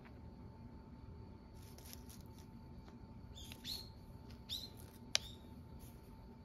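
A small bird chirping a few times, short high calls that sweep down in pitch, over a faint steady garden background, with one sharp click about five seconds in.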